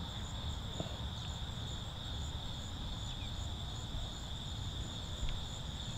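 Steady chorus of crickets, an unbroken high trill, over a low rumble.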